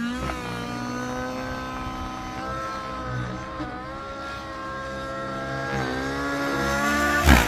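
Nitro RC helicopter in flight: its O.S. 105 glow engine and rotor run at a high, steady speed, with the pitch dipping and rising as it manoeuvres and growing louder toward the end. A short burst of noise comes near the end.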